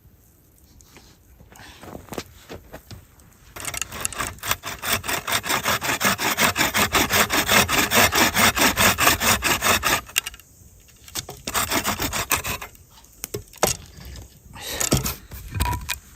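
Hand saw cutting into a wooden log: after a few quiet seconds, a fast, even run of rasping strokes about four a second for some six seconds, then slower, uneven strokes.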